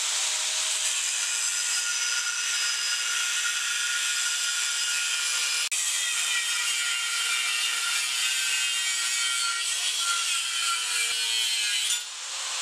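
Angle grinder with a thin cut-off disc cutting through a steel box of 3/16-inch flat bar, a steady high-pitched grinding whine of the disc in the metal. It drops out for an instant about halfway through and dips briefly near the end.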